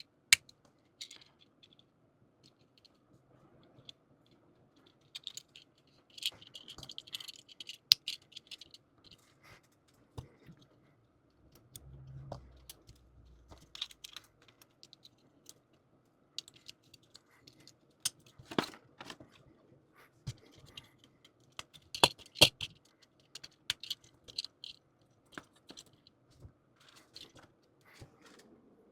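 Small hard-plastic model kit parts being handled and pressed together: irregular clicks, rattles and sharp snaps, with a few louder snaps as pieces lock into place.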